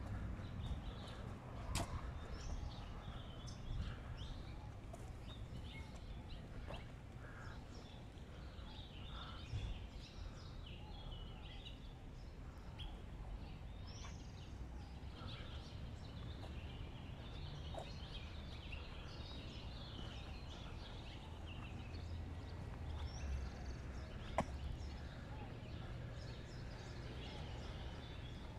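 Birds chirping in the street trees, many short calls scattered throughout, over a steady low city rumble, with a couple of sharp clicks.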